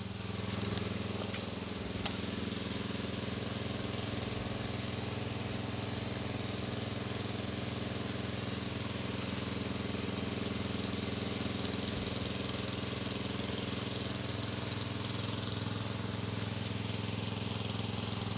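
A small engine running at a steady speed, with an even hum throughout. There are a couple of faint clicks in the first two seconds.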